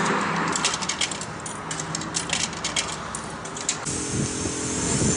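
Coins fed one after another into a self-service car wash's coin box, clinking as they drop. About four seconds in, the wash bay's machinery starts with a steady hum and a thin high tone.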